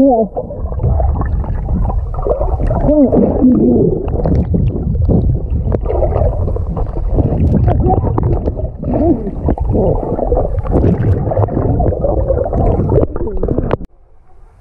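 Muffled, watery pool sound as heard through a camera in or under the water: dense gurgling and sloshing with wavering, distorted voice-like glides. The sound cuts off abruptly near the end.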